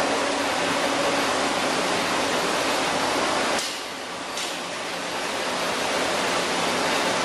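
Chili powder milling machinery running with a steady loud rushing noise. About three and a half seconds in it drops suddenly to a quieter, thinner rush.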